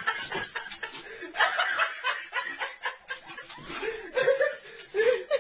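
A person laughing in short bursts of snickering and chuckling, with the laughter growing stronger near the end.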